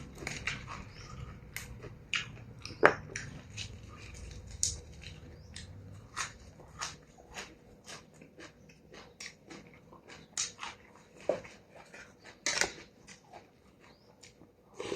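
Close-up eating sounds: a person chewing and biting on a mouthful of noodle soup with stewed beef, with irregular short wet clicks and smacks.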